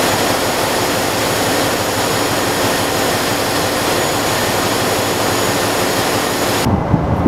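Ship's diesel generator engines running in the engine room: a loud, steady roar with faint steady high whines. It cuts off abruptly near the end, giving way to a lower rumble.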